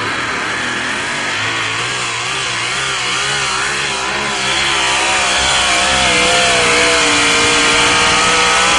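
Four-wheel-drive pulling truck's engine at full throttle, hauling a weight-transfer sled down the track. The revs waver up and down throughout, and the engine gets louder about halfway through.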